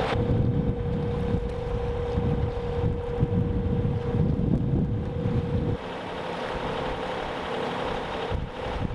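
Wind buffeting the microphone aboard a sailboat under way, over a steady single-pitch hum; the buffeting stops suddenly about six seconds in.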